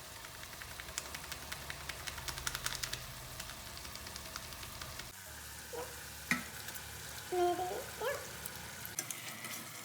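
Chicken curry sizzling and crackling in the pan, with dense crackle in the first few seconds that thins out later. A few short high-pitched squeaks come about six to eight seconds in.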